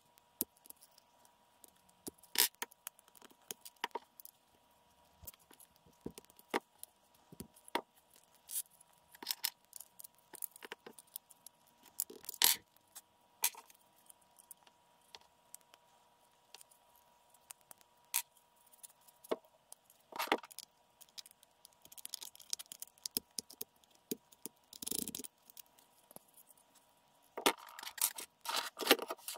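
Irregular clicks, taps and scrapes of small steel pins and a 3D-printed plastic pistol frame being handled and fitted, sped up fourfold, with a few louder clusters of clicks.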